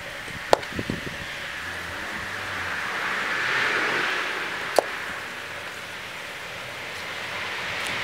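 Pliers clicking against a freshly cast aluminium piece as it is gripped and lifted out of a sand mould: a sharp click about half a second in, a few lighter knocks, and another sharp click near the five-second mark, over a hiss that swells and fades in the middle.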